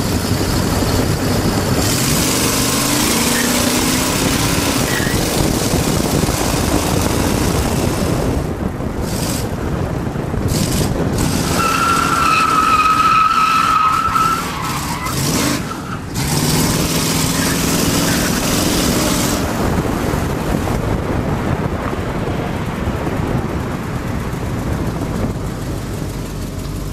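Muscle car's V8 engine accelerating and running at speed under heavy wind and road noise, heard from a camera mounted low on the car's side. About twelve seconds in, a steady high squeal of tyres lasts a couple of seconds.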